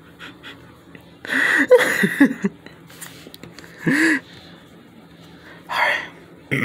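A person laughing and gasping in short bursts after a joke's punchline: a longer wavering burst about a second in, then brief breathy ones around the middle and near the end.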